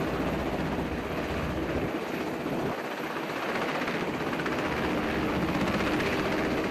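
MH-60S Sea Hawk helicopter hovering with an underslung cargo load, its rotor and engine noise loud and steady.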